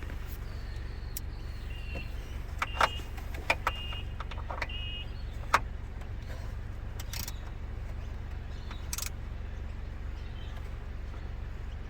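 Scattered clicks and metal clinks of hand tools and screws being worked on a Mercedes E250 panoramic sunroof frame, with a few short high squeaks in the first few seconds, over a steady low hum.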